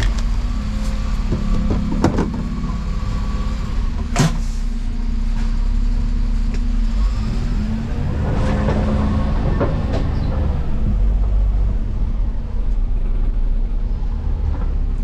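Cab interior of a 2018 Dennis Eagle Elite 6 refuse lorry: its diesel engine running steadily as the lorry pulls away and turns, with two sharp knocks about two and four seconds in.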